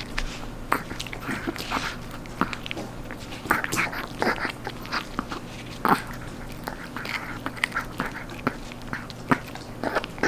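A Chihuahua gnawing a dried, crispy duck knee treat, its teeth crunching and cracking the bone and cartilage in irregular bites several times a second, with the sharpest crack about six seconds in.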